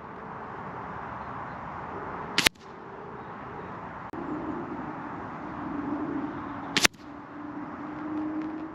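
Two shots from a Benjamin Armada .22 PCP air rifle, each a single sharp crack, about four seconds apart. A steady wind rush runs between them.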